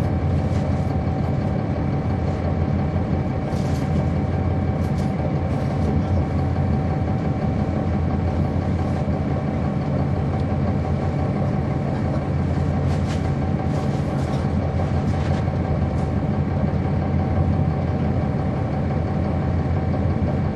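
Cummins ISL9 diesel engine of a 2010 NABI 40-SFW transit bus running steadily at an even pitch, heard from inside at the back of the bus, with a few faint clicks and rattles.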